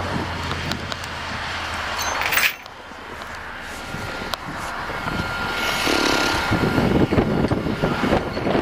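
Wind buffeting the microphone in a snowstorm, over a vehicle engine running. A steady low hum cuts off suddenly about two and a half seconds in.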